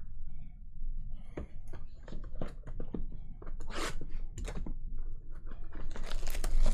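Trading cards being handled: a run of light clicks and taps as the cards are flipped through and set down, with a louder rustle near the end.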